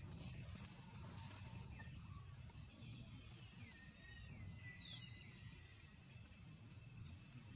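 Faint outdoor ambience: a low steady rumble with a few faint high chirping calls, the longest drawn out about four to five seconds in.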